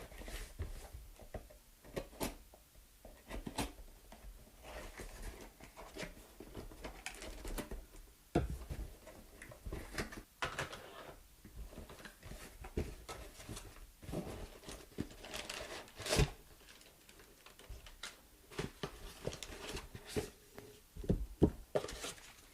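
Packaging being handled and opened: rustling and tearing with scattered light clicks and knocks, a couple of sharper knocks about a third and two-thirds of the way through.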